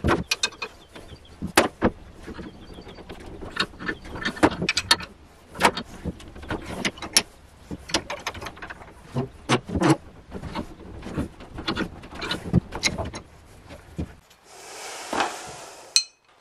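Irregular sharp metallic clicks and knocks as a bent scooter brake lever is worked in a cast-iron bench vise, the vise and its handle being turned and shifted while the lever is straightened. A short rushing noise comes near the end.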